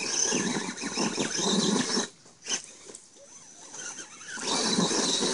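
Electric motor and geared drivetrain of an Axial Wraith RC rock crawler whining under stop-start throttle as the truck climbs onto rocks. It runs hard for about two seconds, drops off, and picks up again near the end.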